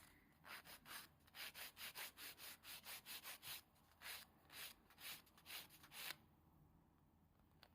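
Hand nail file rasping back and forth over a sculpted nail in quick, faint strokes, about three a second, refining the nail's shape; the strokes stop about six seconds in.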